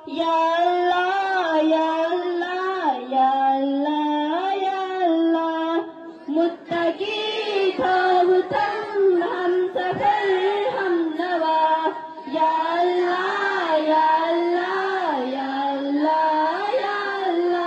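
A group of schoolchildren singing a Kashmiri prayer together to one slow melody of long held notes, with short pauses for breath about six and twelve seconds in.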